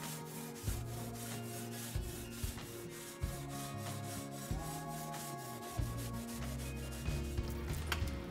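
Wire grill brush scrubbing the metal grill grates in repeated back-and-forth scraping strokes, with background music underneath.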